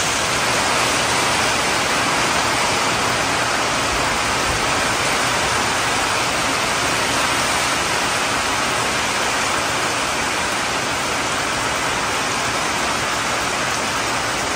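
Heavy downpour: a steady hiss of rain falling on leaves and roofs.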